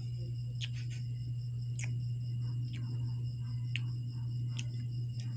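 Scattered sharp crunching clicks from chewing a crunchy puffed rice snack, over a steady low electrical hum that is the loudest thing present.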